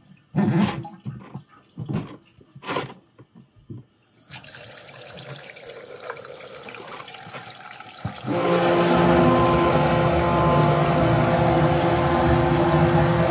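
Water splashing and gurgling in a kitchen sink drain in short bursts, then a lower wash of water. About eight seconds in, a high-pressure drain-jetting washer starts and runs steadily.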